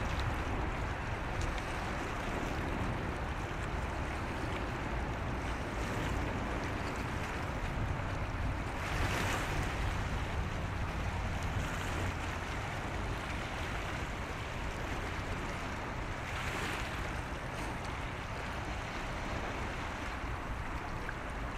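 Wind buffeting the microphone over the steady wash of sea water along the shore, with two louder washes of waves about nine and sixteen seconds in.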